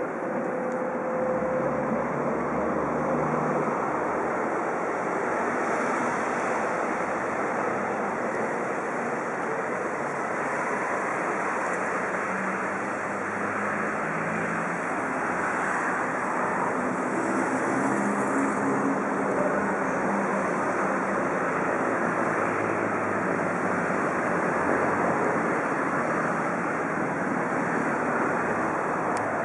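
Steady rushing noise: wind on the microphone mixed with the distant running of an approaching Trensurb electric multiple unit, with faint low hums in the middle.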